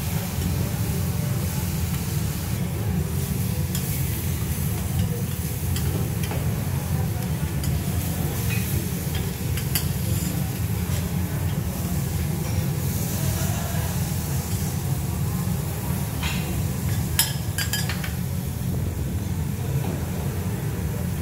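Shrimp, squid and vegetables sizzling on a flat-top steel griddle, with a metal spatula scraping and clicking against the plate, a few sharp clicks coming close together near the end. A steady low hum runs underneath.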